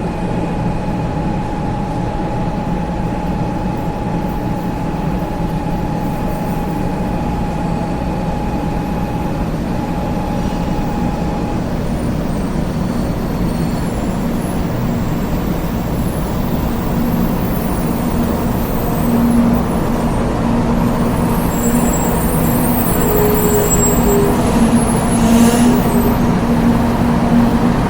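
Train running with a steady, continuous low rumble. A thin high whine stops about eleven seconds in; a low hum and some high squeals come in during the last third.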